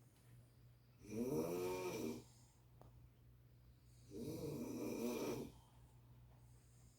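A sleeping person snoring: two snores, each a little over a second long, about three seconds apart, over a steady low hum.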